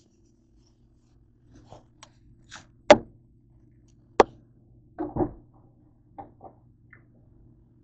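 A bowl and a plastic milk jug being set down on a glass tabletop: a string of sharp knocks and thumps, the sharpest about three seconds in and a double thump about five seconds in, over a low steady hum.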